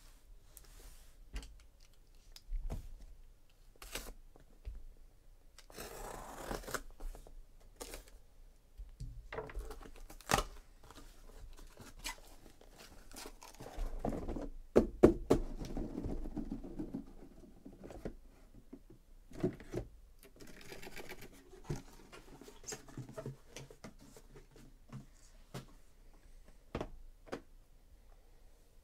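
Cardboard shipping case being opened and handled by hand: packing tape tearing, cardboard rustling and scraping, and scattered knocks as the case is lifted off the stack of card boxes inside. The loudest knock comes about halfway through.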